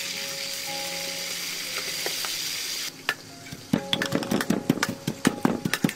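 Stingray pieces deep-frying in hot oil in a metal wok, sizzling steadily; the sizzle cuts off about three seconds in. Then a pestle pounds chilies and salt in a wooden mortar: a quick run of sharp knocks, about five a second.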